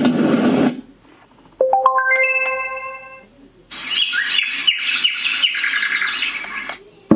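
A white noise machine's built-in sounds playing through its speaker as presets are switched. A rumbling noise track cuts off, then a rising run of six chime-like notes rings out, and about four seconds in a recording of birds chirping plays for about three seconds before stopping.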